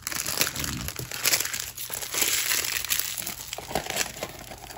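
Plastic packaging wrapper crinkling as it is handled, starting suddenly and thinning out near the end.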